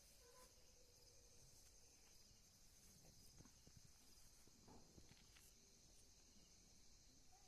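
Near silence, with a faint steady high-pitched hiss and a few soft knocks about halfway through.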